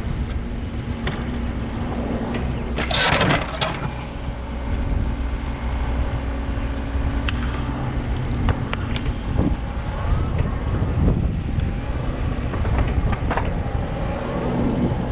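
Backhoe's diesel engine running steadily under work, with scattered clanks and knocks from the digging gear and a loud burst of noise about three seconds in.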